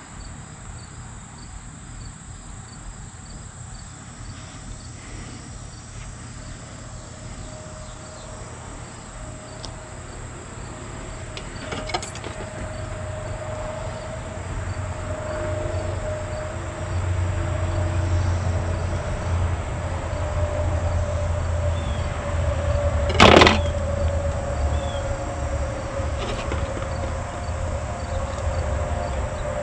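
Outdoor ambience of insects chirping in a steady, evenly repeating pattern, under a low steady hum that grows louder from about halfway through. Two sharp knocks stand out, a faint one just before halfway and a loud one about three-quarters through.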